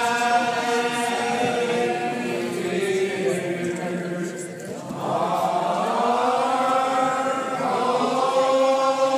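Old Regular Baptist congregation singing a lined-out hymn without instruments, many voices drawing out slow, long-held notes together. The singing eases briefly about four and a half seconds in, then the next phrase swells and slides up.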